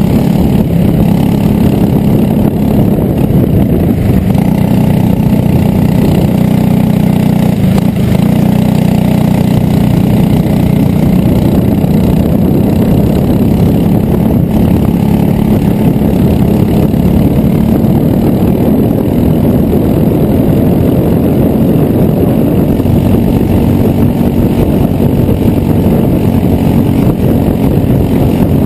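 Racing kart engine running hard at race speed, heard from on board the kart: loud and continuous, its pitch shifting a little as the driver works through the corners.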